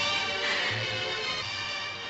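Film soundtrack music: sustained melodic lines over a low, pulsing bass.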